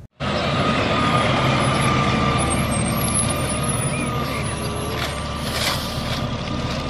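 Rear-loading garbage truck running at the kerb, its engine and machinery making a steady heavy noise with a thin high whine held throughout. There are a few short hiss-like noises near the end.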